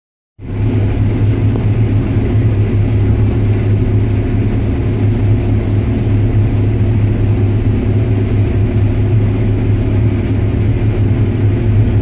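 Case IH 7230 combine running under load while harvesting soybeans, heard from inside the cab as a steady low drone.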